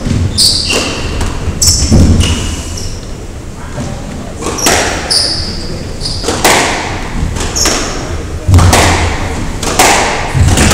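Squash rally: the ball is struck hard by rackets and thuds off the court walls about every two seconds, about six hits in all, with short high squeaks of court shoes on the wooden floor between them.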